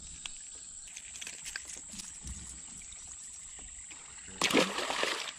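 Small handling clicks and taps, then, about four seconds in, a released bass hits the river with a splash that lasts about a second.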